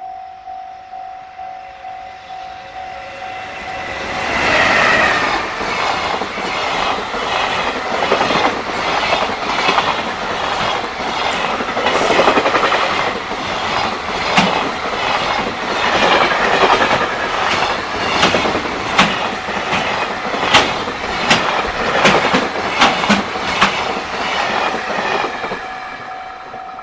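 Japanese level-crossing warning bell ringing in steady rapid pulses, then, about four seconds in, swamped by a freight train racing through the crossing: a long run of wagon wheels clattering over the rail joints with sharp clicks. The bell comes back through as the last wagons pass near the end.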